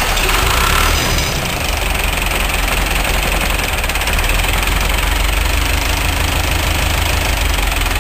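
Ursus C-385 tractor's four-cylinder diesel engine idling steadily, just after being started.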